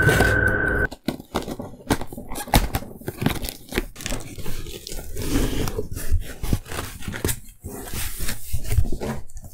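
Background music that stops about a second in, then a cardboard shipping box being opened by hand: flaps torn free and pulled back, rubbing and scraping, with irregular knocks and crinkling.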